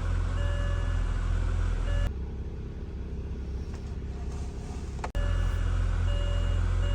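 A car engine running with a steady low rumble, and a repeating beeping chime over it. In the middle the sound drops to a quieter passage for about three seconds, ending with a sharp click, before the engine and chime return.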